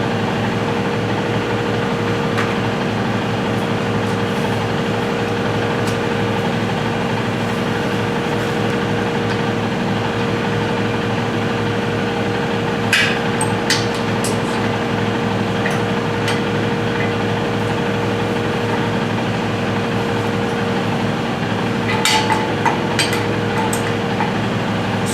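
A steady machine hum with a constant tone throughout. A few sharp metallic clicks and taps come about halfway through and again near the end, as a threaded drain-valve fitting is handled and screwed onto the compressor tank.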